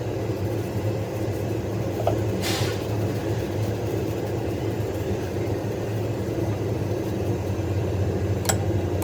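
A motor or engine running steadily with a low hum. A short hiss comes about two and a half seconds in, and there are a couple of light clicks.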